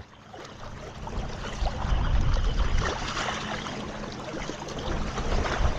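Wind rumbling on the microphone over choppy lake water washing against the shore, with scattered small ticks and splashes; the rumble swells about two seconds in.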